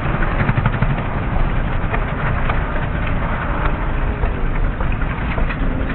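Small engines of several racing riding lawn mowers running together: a loud, steady rumble with an irregular crackle on top.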